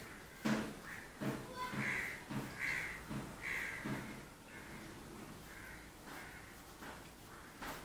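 Crows cawing, a run of harsh caws strongest about two to four seconds in and fainter later, with a few short knocks in the first four seconds.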